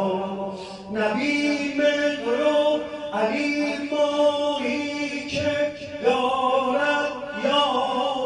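A man chanting unaccompanied in long, drawn-out notes, with short breaks between phrases.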